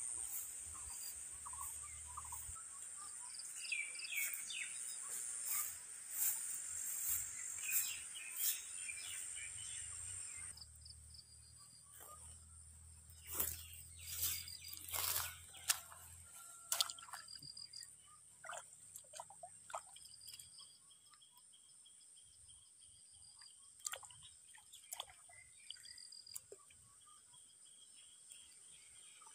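Outdoor ambience with birds chirping now and then. The background noise drops sharply about ten seconds in, leaving a quieter scene with scattered small clicks and rustles.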